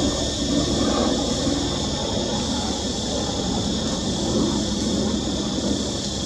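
Steady outdoor background noise: a high, even drone over a low rumble, with no distinct events.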